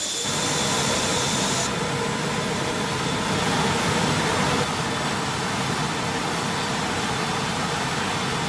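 Steady machine noise of an industrial bakery tunnel oven line running, with a few faint steady hum tones under it. It drops slightly in level a little past halfway through.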